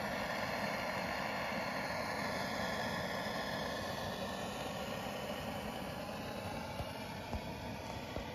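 Steady, even drone of a distant engine, its pitch drifting slowly. A few light clicks come near the end.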